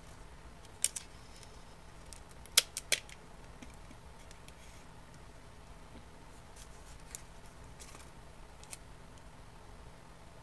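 Clear tape pulled from a Scotch tape dispenser and torn off, with a paper strip being handled and pressed: a few sharp snaps and clicks, the loudest about two and a half to three seconds in, then fainter scattered ticks.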